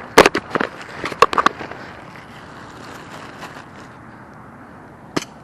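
An airsoft rifle firing single shots: a quick, irregular run of sharp snaps in the first second and a half, then one more sharp snap near the end.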